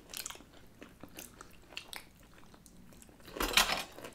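Close-up chewing of snack food, with small crisp crunches and a louder burst of crunching near the end.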